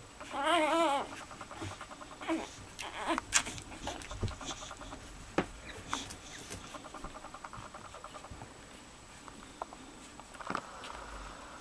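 Boxer puppies feeding: one puppy gives a loud wavering squeal in the first second, then small suckling clicks and smacks run on, with a few short squeaks and whimpers.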